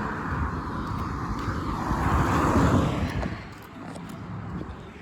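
A vehicle driving past on the road: a rushing swell of tyre and engine noise that builds to its loudest about two and a half seconds in, then fades quickly.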